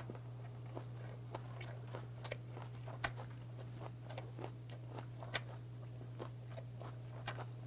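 Close-miked chewing: a man chewing a mouthful of semi-dried Pacific saury (gwamegi) wrapped with scallions and greens, with irregular soft wet clicks and small crunches. A steady low hum sits underneath.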